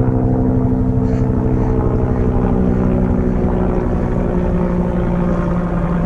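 Low-flying aircraft passing overhead: a loud, steady engine drone.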